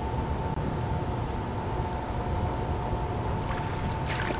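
Steady rush of flowing river water mixed with wind buffeting the microphone, with a brief high hiss about four seconds in.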